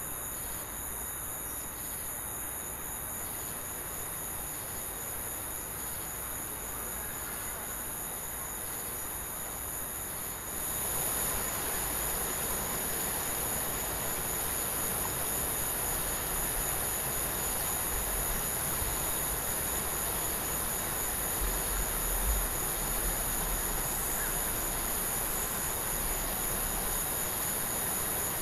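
Steady outdoor river ambience: a continuous high insect buzz over a broad, rumbling hiss that gets louder about ten seconds in. In the second half a low engine rumble comes up as a motor cargo barge passes on the water.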